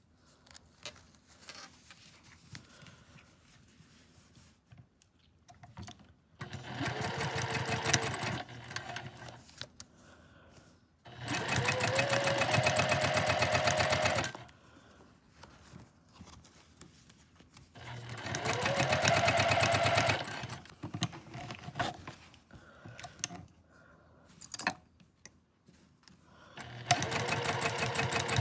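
Sewing machine stitching in four short runs of a few seconds each, the motor speeding up at the start of a run. Quiet handling of the fabric fills the pauses between runs.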